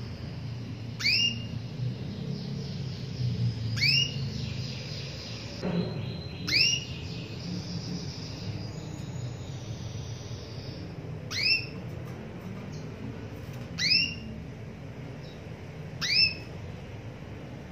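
Female canary calling for a male: six short, sharply rising call notes, one every two to five seconds, with softer twittering between about four and eleven seconds in.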